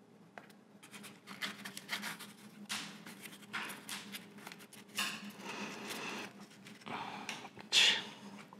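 Wooden stirring stick scraping through two-part epoxy on a piece of cardboard: a series of short, irregular scratches, the sharpest one near the end.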